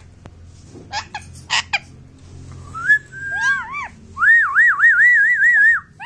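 Indian ringneck parakeet giving two short squawks, then whistling: a rising note held briefly, a few quick arching notes, and a long warbling whistle that wavers rapidly up and down before breaking off near the end.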